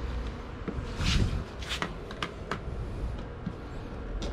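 Hands working the clear plastic battery-compartment lid on a Litheli 2x20V cordless lawn mower, giving a handful of light plastic clicks and knocks.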